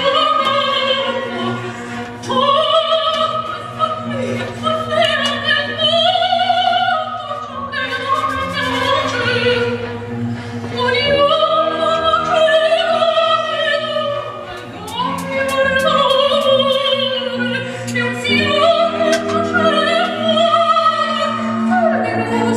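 Operatic singing with orchestral accompaniment: long held, wavering sung notes over sustained strings.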